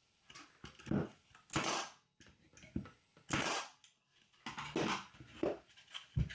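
Pneumatic pin nailer firing brads into plywood, several sharp shots with a short hiss of air each, at irregular intervals, with knocks of the wooden pieces being handled between them.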